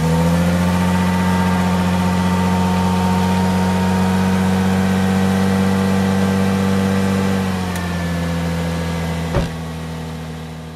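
Toyota Solara engine heard at the tailpipe, fast-idling steadily just after a cold start, with the muffler flange joint freshly resealed with a new gasket and bolts. The idle steps down a little about seven and a half seconds in, and there is a single sharp click a couple of seconds later.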